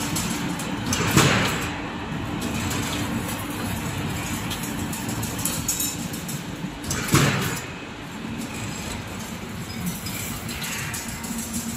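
Automatic chain link fence machine running as it weaves wire mesh: a steady mechanical whir with a low hum, broken twice by a short louder clatter, about a second in and again about seven seconds in.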